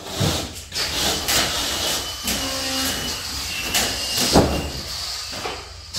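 A sheet of 6 mm cement board being pushed and knocked into place against a wall frame: two sharp thuds, just after the start and about four and a half seconds in, over a steady hiss of mechanical noise.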